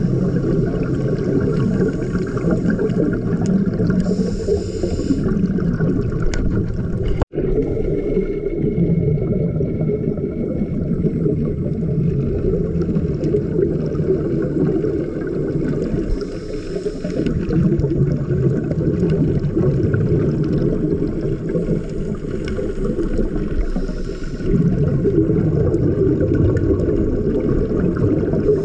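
Scuba regulator breathing and bubbles heard underwater: a steady, muffled low rumble with a brief hiss every several seconds. The sound cuts out for an instant about seven seconds in.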